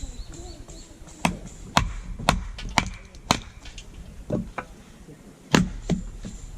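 Firewood being chopped or split: a run of sharp wooden knocks, about two a second, then a pause and a few more, the last two loud.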